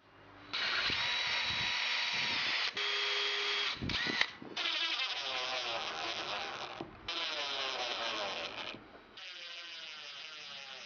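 Power drill driving countersunk screws through a small aluminium plate into an MDF block, in about five short runs with brief stops between them. A sharp knock about four seconds in.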